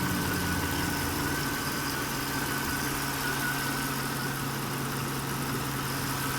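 Mercedes M273 V8 idling steadily, with a thin steady whine above the engine note. The engine has a random misfire, mainly in cylinder 8, that shows as popping from the intake and a hesitation at idle; the owner traced it to clogged fuel injectors.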